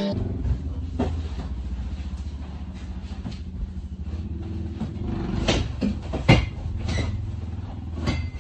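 Metal knocks and clanks from working school-bus seat bolts loose with a hand ratchet and wrench, scattered over a steady low hum, the loudest knock about six seconds in.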